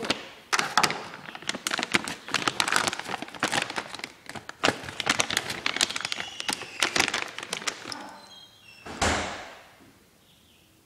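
Handling noise: rustling, tapping and knocking of plastic feed bag, feeder and brooder parts as a chick brooder is refilled with food and water. About nine seconds in comes one longer scraping sweep that fades away, with a few faint high peeps just before it.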